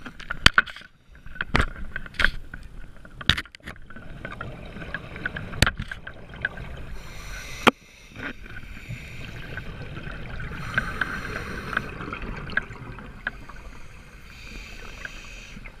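Underwater sound of a scuba dive: a series of sharp clicks and knocks in the first half, then the hiss and gurgle of the diver's regulator bubbles coming in stretches.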